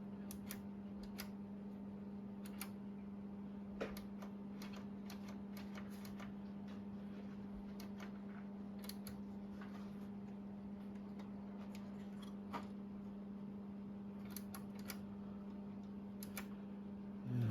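Scattered, irregular clicks of oscilloscope front-panel switches, knobs and push buttons being worked while trying to get the trigger to lock, over a steady low electrical hum.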